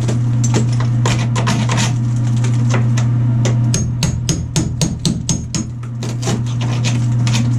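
Quick, irregular hammer strikes, several a second, chipping at tile and a thick old mortar bed on a shower wall, with a short pause in the strikes around the middle. A steady low hum runs underneath.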